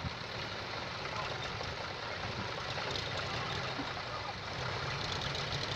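Diesel engine of heavy farm machinery running steadily.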